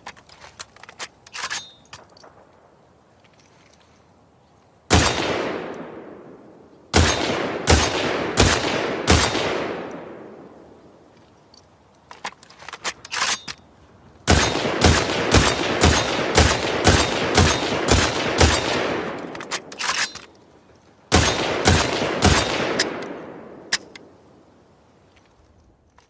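Semi-automatic rifle firing: one shot, then strings of quick shots at about two a second, each string trailing off in a long echo. Faint mechanical clicks fall in the pauses between strings.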